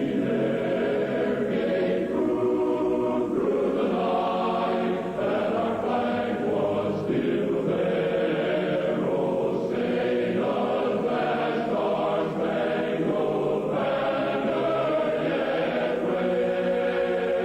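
A choir singing slow, held chords without a break, the sound dull and muffled with little above the middle range.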